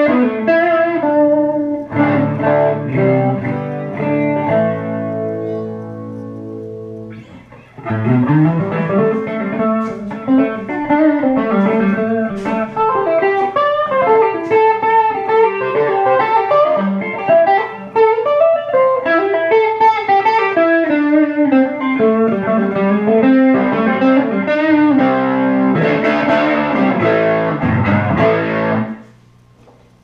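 Electric guitar played through a Leslie 147 rotating-speaker cabinet: held chords ringing and fading, a short lull about seven seconds in, then a busy run of notes with bent, gliding pitches that breaks off shortly before the end.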